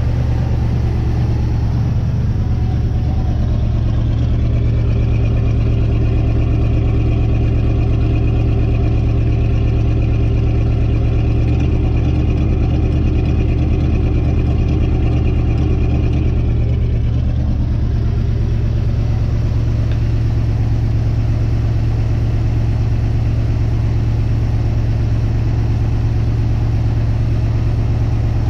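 1958 Dodge Coronet Lancer's V8 running steadily but not firing on all cylinders; the owner has found two outer cylinders, numbers 2 and 8, not firing. A higher tone joins the engine sound from about four seconds in until about seventeen seconds in.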